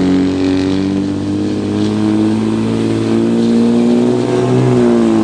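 Ram heavy-duty pickup's Cummins turbo-diesel running at full throttle under heavy load as it drags a pulling sled. Its pitch creeps up in the middle and begins to fall near the end as the throttle comes off.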